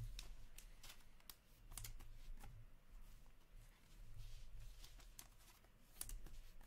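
Faint handling of hockey trading cards: cards being flipped and slid against one another by hand, giving a scatter of short, light snaps and rustles. A steady low hum runs underneath.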